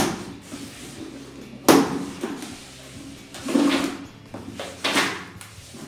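Plastic packing straps being pulled off a cardboard box: four short bursts of rustling and snapping, the sharpest about two seconds in.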